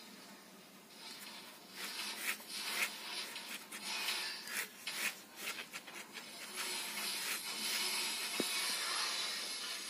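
Ballpoint pen scratching across carpet in short, quick rubbing strokes, becoming a steadier scratchy hiss in the second half.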